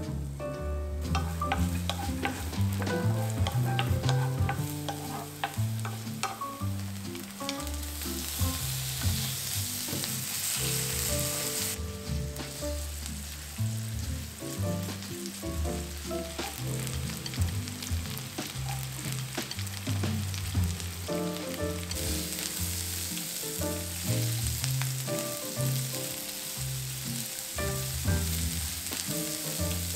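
Sliced green onions and then bacon sizzling in oil in a frying pan, stirred and pushed around with a wooden spatula; the sizzle swells at times as the bacon cooks.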